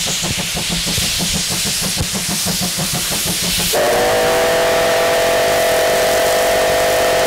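C12-class steam tank locomotive working hard, with regular exhaust chuffs and the hiss of steam from its open cylinder drain cocks. About halfway through, its steam whistle sounds a long, steady chord of several tones that drowns out the chuffing.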